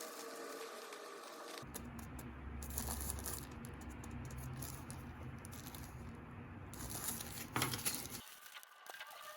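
Rustling and crinkling of packaging being handled, with scattered light clicks and taps.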